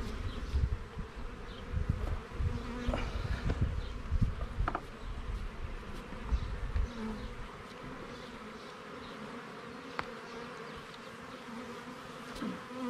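Honeybees buzzing steadily around an opened hive while frames of capped honey are pulled and cleared of bees. A low rumbling handling noise fills the first half and stops about seven seconds in.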